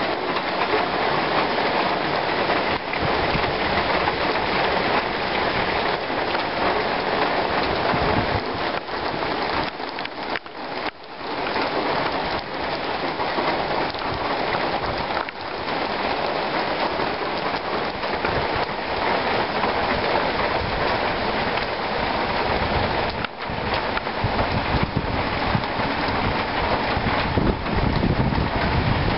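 Heavy rain falling steadily on leafy trees, a dense, even hiss that dips briefly about ten seconds in.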